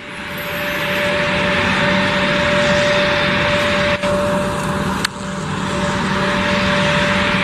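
Airbus A320 jet engines running at low thrust as the airliner taxis onto the runway: a steady whine over a broad rushing noise, swelling over the first second.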